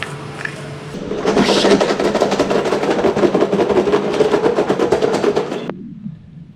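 Chicken salt shaken rapidly from a shaker over a bowl of hot chips, a fast rattling of grains that stops suddenly near the end.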